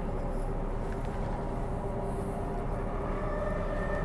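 Transperth Bombardier B-series electric multiple unit running, heard from on board: a steady rumble with a steady electric hum, and a higher whine joining in about three seconds in.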